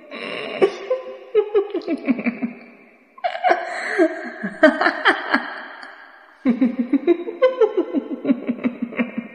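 Three bouts of sinister horror-style laughter, each starting high and breaking into quick repeated laughs that fall in pitch.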